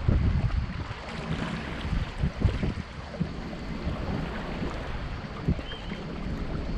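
Wind buffeting the action-camera microphone in uneven gusts, over a steady hiss of sea surf along the shore.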